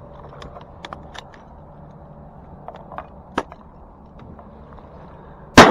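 A single very loud shotgun shot near the end, after a few faint clicks and knocks.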